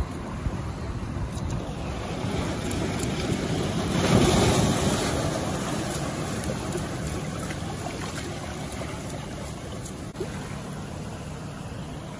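Ocean surf washing onto the beach, one wave swelling loudest about four seconds in and then slowly ebbing away.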